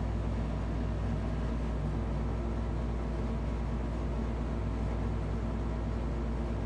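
Steady low hum of room background noise with a faint hiss, unchanging throughout.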